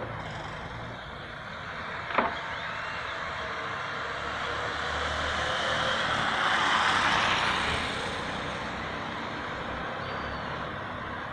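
Road traffic: a motor vehicle's engine and tyre noise swells up and fades away as it passes, loudest about six to eight seconds in. A single sharp knock sounds about two seconds in.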